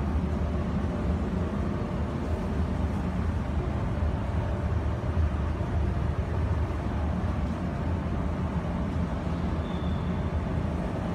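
Steady low hum and rumble of powered LED video wall cabinets running, their cooling fans and power supplies working, with a faint brief high tone near the end.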